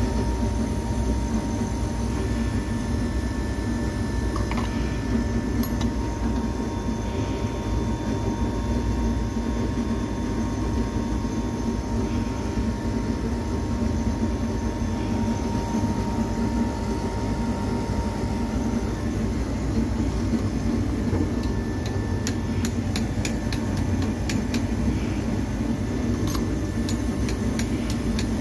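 Split air conditioner's outdoor condensing unit running steadily, with the compressor humming and the condenser fan turning, under load just after being recharged with freon.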